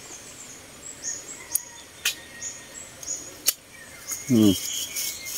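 Mouth noises of a man eating Java plums (duhat): a few sharp lip-smack clicks and a brief falling 'mm' of voice about four seconds in, with birds and insects chirping faintly behind.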